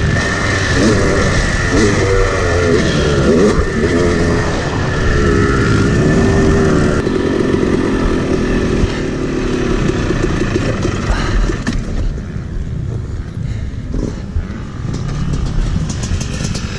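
Yamaha 250 two-stroke dirt bike engine, heard from the rider's position. It rises and falls in pitch as the bike is ridden, then runs quieter in the last few seconds as the bike slows to a stop.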